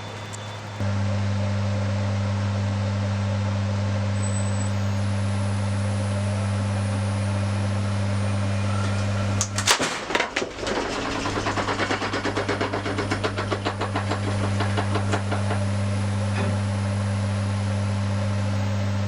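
Wood lathe running with a steady low hum while turning a yew platter blank. About halfway through there is a sharp, loud knock, then several seconds of rapid rhythmic knocking as a turning tool cuts into the spinning, uneven wood.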